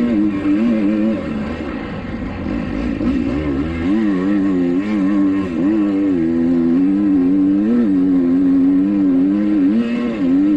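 2021 Kawasaki KX250X 250cc four-stroke single-cylinder engine being ridden hard, its note rising and dipping repeatedly as the throttle is worked and gears change.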